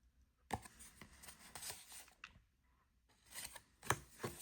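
Cardboard trading cards being handled and slid against one another, rustling and scraping in two bouts with a few sharp clicks.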